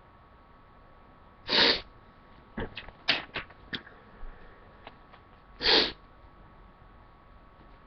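A man sneezing twice, about four seconds apart, with several short sharp noises in between; the sneezes are brought on by tickling his nostril with a Q-tip.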